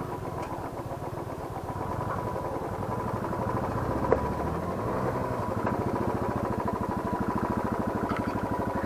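Motorcycle engine running steadily at low revs with an even pulsing beat, picking up slightly a couple of seconds in, with one brief knock about four seconds in.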